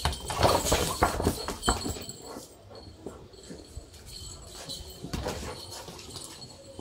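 A Rottweiler's claws and paws clicking and scuffing on concrete as it runs after a rolling ball. There is a quick run of clicks and knocks in the first two seconds and another short flurry about five seconds in.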